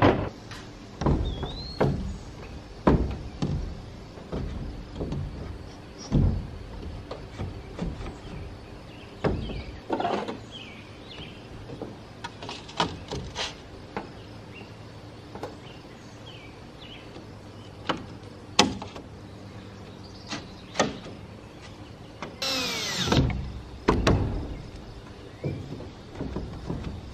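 Scattered knocks and clunks of metal-framed solar panels and mounting hardware being handled and set on their rails, with a short run of a cordless drill about 23 seconds in, its pitch dropping under load. Faint bird chirps in the background.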